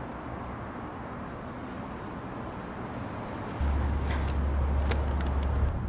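Steady background hiss like outdoor traffic ambience. About three and a half seconds in, a loud deep low hum starts and holds for about two seconds, with a thin high tone and a few sharp ticks over it, then stops.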